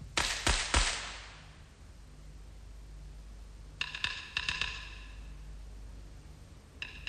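Radio-play sound effect of Vesuvius erupting: three loud crashes in quick succession that ring off, then two groups of bright ringing, chime-like notes about three seconds apart.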